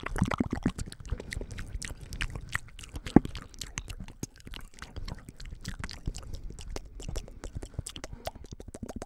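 ASMR mouth sounds made close to the microphone behind cupped hands: a dense, irregular run of wet clicks and smacks, with one sharper click about three seconds in.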